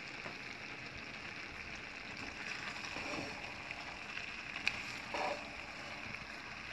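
Onions, carrots and freshly added cauliflower florets sizzling steadily in an oiled frying pan. In the second half a silicone spatula stirs them, with a sharp click about four and a half seconds in.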